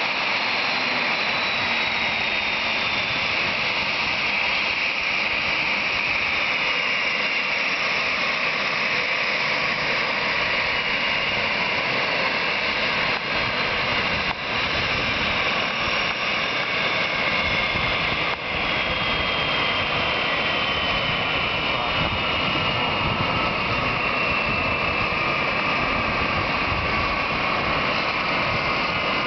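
Boeing 737-500's twin CFM56-3 turbofan engines running at taxi power, a steady jet roar with a high whine that slowly falls in pitch.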